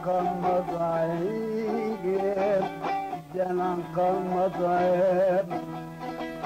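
Turkish folk music: a plucked bağlama (saz) playing an instrumental passage with quick ornamented runs over a steady low drone.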